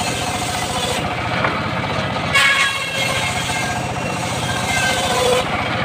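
Homemade circular saw running and ripping old mahogany planks, with a steady low drive under the blade's pitched whine, which swells about two and a half seconds in as a board goes through.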